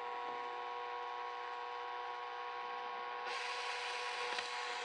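Cordless drill turning a small bit slowly to drill a pilot hole into a skydiving helmet shell: a steady motor whine that grows louder and harsher about three seconds in.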